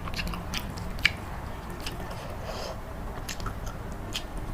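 Close-up chewing and wet mouth clicks from a person eating egg curry, with short irregular clicks and soft smacks.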